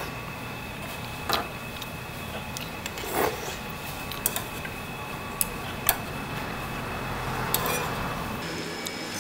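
Eating at a pan of tteokbokki: metal chopsticks click sharply against the pan and a plastic ladle about five times, with a slurp about three seconds in, over a steady background hum.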